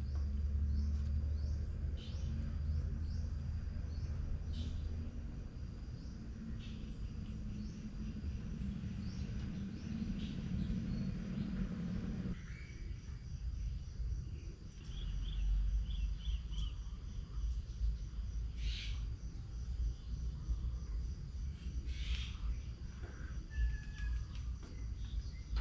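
Garden ambience: a steady high insect trill with scattered short bird chirps over a low hum. The low hum cuts off abruptly about twelve seconds in.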